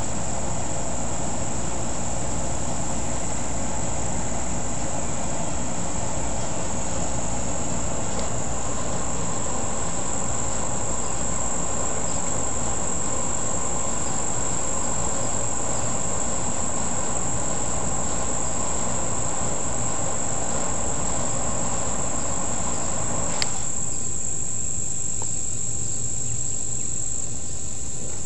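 Steady, high-pitched trilling of an outdoor insect chorus, unbroken throughout. Beneath it a steady lower rumble runs until a sharp click a little before the end, when it stops.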